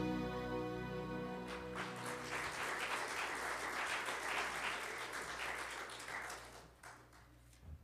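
The last held chord of a worship song rings and fades away in the first second or two. A congregation then claps for about five seconds, and the applause thins out and stops near the end.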